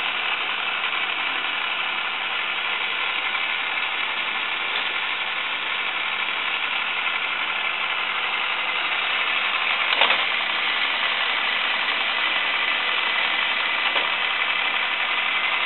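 Space Rail marble run running: the motor-driven marble lifts, an elevator and an Archimedes screw, whirring steadily while chrome ball bearings roll along the rails. A single click about ten seconds in.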